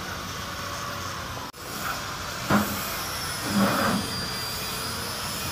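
Steady background hiss with a short sharp knock about two and a half seconds in and a second, rougher thump about a second later.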